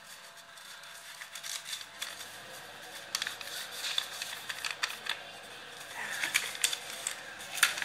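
Handling noise: scattered light clicks and crinkles of paper cards and packaging being moved about close to the phone's microphone.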